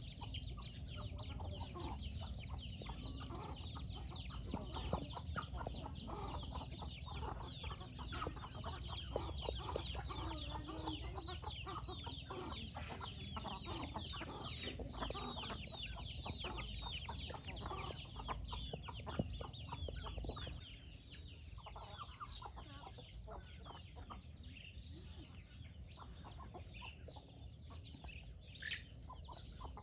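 A flock of young chickens and hens calling while they feed: a dense run of rapid, high peeps and clucks. A low steady rumble underneath drops away about two-thirds of the way through.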